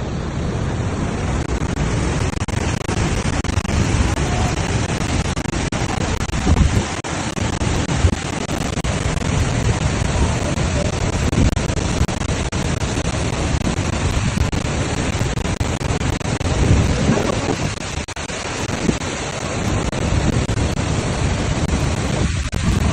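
Niagara Falls' rushing water as a steady roar, with wind buffeting the microphone. There are brief dips about seven, eighteen and twenty-two seconds in.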